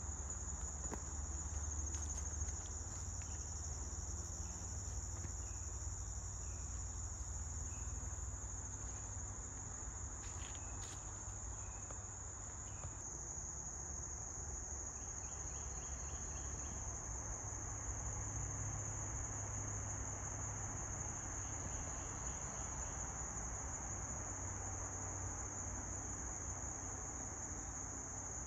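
Steady, high-pitched, unbroken chorus of crickets and other insects.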